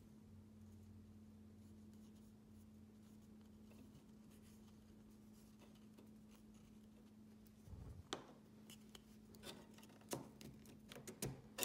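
Mostly near silence with a faint steady hum. From about eight seconds in come light clicks and rubbing as hands push the glued paper body tube down into the rocket's plastic fin unit.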